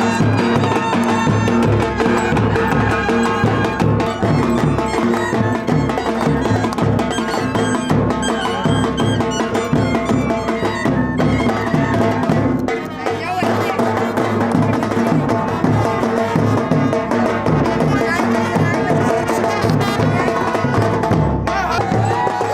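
Loud music with a steady drum beat and melodic instruments.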